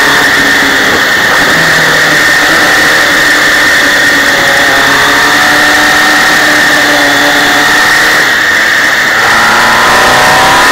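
Engine of an MV Agusta sidecar motorcycle, heard from a camera mounted on the outfit, running loud and steady under way over wind and road noise. Its pitch rises near the end as the rider accelerates.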